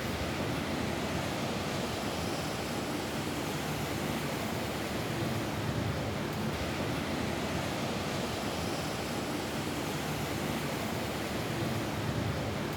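Rain falling steadily on a roof, an even hiss.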